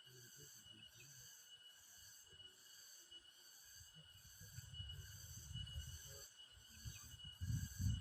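Forest insects chirring in a steady chorus that pulses about twice a second, with low rumbling noise joining about halfway in and growing louder near the end.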